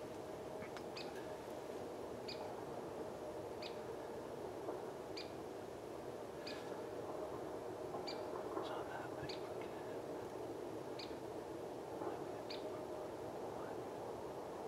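A small bird calling one short, high note over and over, about every second and a half, over a steady low hiss.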